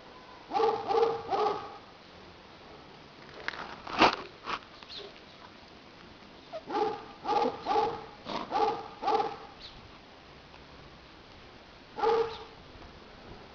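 Five-week-old Serra da Estrela puppies barking in short, high yaps. There are three quick barks near the start, a sharp, loud one about four seconds in, a run of five in the middle, and one more near the end.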